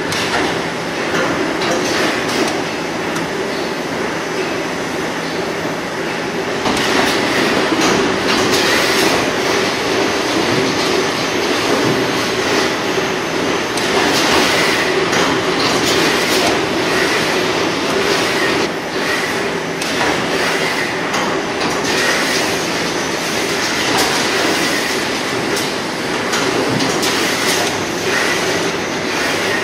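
Brother R650X2 CNC vertical machining center running a machining cycle: a loud, continuous mechanical noise over a steady hum, with frequent short clicks, getting louder about seven seconds in.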